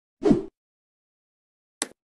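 Sound effects of an animated subscribe button: a short pop as the button appears, then a single sharp mouse-click sound near the end.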